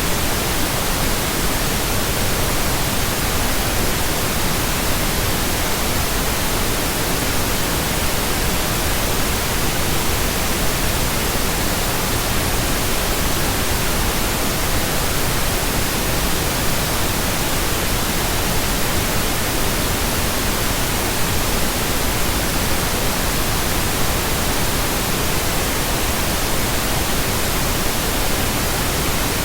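Steady, computer-generated pink noise: an even, unchanging hiss spread across all pitches.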